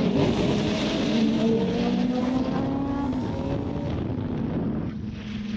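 Suzuki GSX-R sportbike engine heard from the rider's seat, its note climbing in pitch for a couple of seconds as it pulls, then easing off about five seconds in, over steady wind rush.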